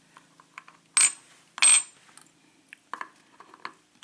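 Small metal lock parts clinking: two sharp ringing clinks, about a second in and again just after, then a few lighter clicks near the end.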